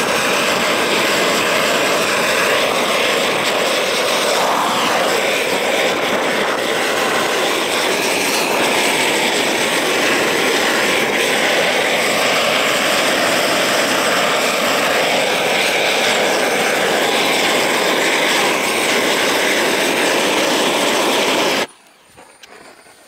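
Gas roofing torch burning steadily and loudly as it heats torch-on bitumen felt for laying. It cuts off suddenly near the end.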